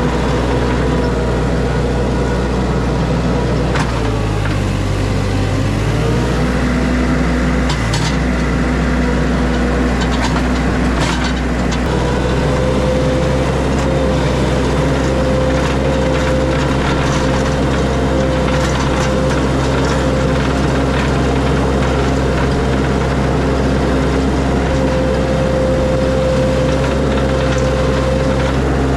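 Mini skid steer's engine running steadily under work, with a steady hydraulic-style whine that comes and goes and a shift in engine pitch about five seconds in. A few sharp knocks or cracks sound around eight and eleven seconds in.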